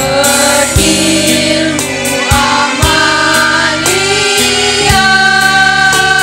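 Women's choir singing in held notes over electronic keyboard accompaniment with a steady beat.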